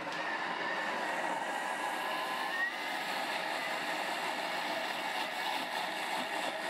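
Thermomix TM6 motor running at high speed, its blades chopping raw onion, carrot and leek into a purée: a steady whine that steps up slightly in pitch about two and a half seconds in.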